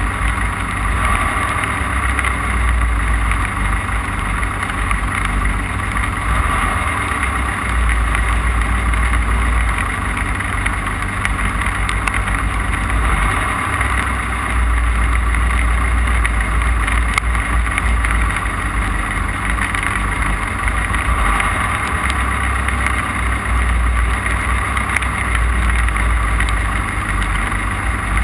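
Off-road race car running flat out over rough, wet desert ground, heard from onboard: a loud, steady engine and drivetrain drone over a heavy rumble.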